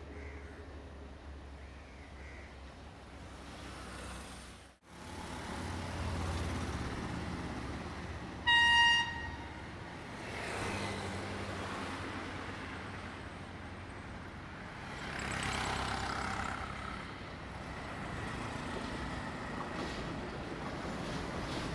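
A train horn gives one short, single-pitched blast about halfway through, over a steady rumble of a train and traffic near the line.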